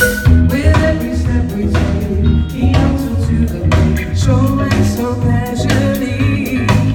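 Live band playing a song through the PA: drum kit hits over a bass line, with a singing voice.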